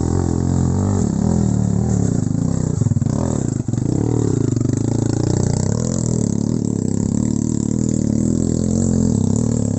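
Trail motorcycle engine running under load and being revved, its pitch dropping for a moment about four seconds in and then climbing again.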